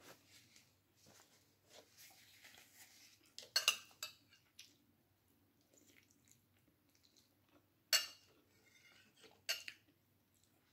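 Cutlery clinking against a plate while eating: a couple of sharp clinks about a third of the way in, then two more near the end, with faint handling sounds between.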